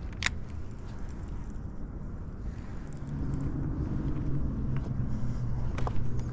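Steady low outdoor rumble, joined about three seconds in by a low motor-like hum, with one sharp click just after the start and a few faint ticks near the end.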